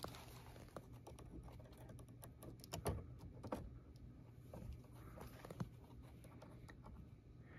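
Faint scattered clicks and light handling noise as plastic multimeter test probes are picked up and handled, with a cluster of sharper taps about two to three and a half seconds in, over a faint steady low hum.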